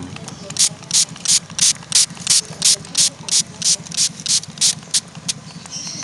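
Hand trigger spray bottle squeezed over and over, about thirteen quick hissing sprays at roughly three a second, misting a pigeon with water.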